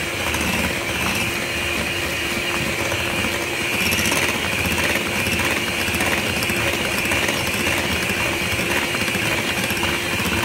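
Turbo electric hand mixer running steadily, its beaters whisking freshly added flour into a batter of beaten eggs and sugar in a glass bowl.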